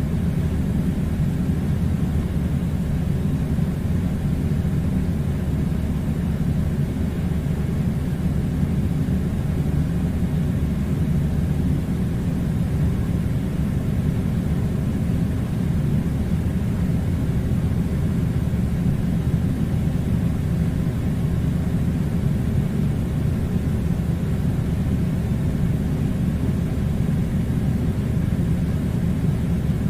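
Air conditioner running with a steady, unchanging low rumble of blowing air.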